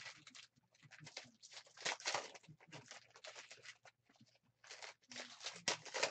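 Foil wrappers of trading-card packs crinkling and tearing as they are ripped open by hand and the cards pulled out, in irregular bursts, busiest near the end.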